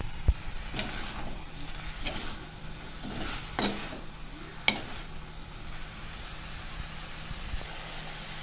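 Marinated chicken pieces and onions sizzling steadily as they fry in oil in a pan, with a few short scrapes and knocks of a spoon stirring them.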